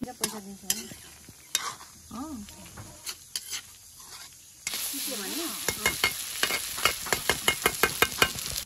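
Perforated metal spoon stirring and scraping a rice-and-chicken mixture in a wide metal wok, with scattered scrapes at first. About halfway through, a steady sizzle of frying starts, with quick scrapes of the spoon several times a second.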